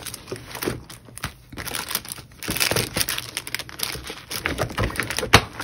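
Packaging crinkling and rustling as craft embellishments are handled and lifted out of a box, with one sharp click near the end.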